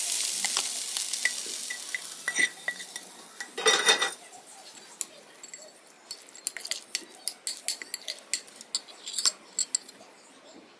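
Hot corn sizzling in a frying pan as it is tipped over a glass bowl, the sizzle fading over the first couple of seconds. A louder scraping burst comes about four seconds in, then a metal spoon clinks and scrapes against the glass bowl over and over as the corn is stirred into the mayonnaise.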